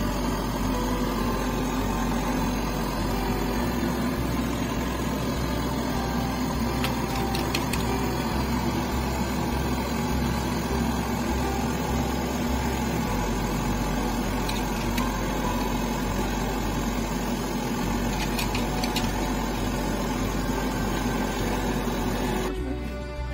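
Steady hum and rush of a kitchen with gas stove burners running under the pots, with a few faint clinks of a metal strainer against the pot.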